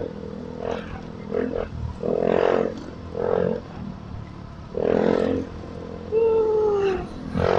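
A dog barking in loud, separate barks about every second, with a falling whine near the end.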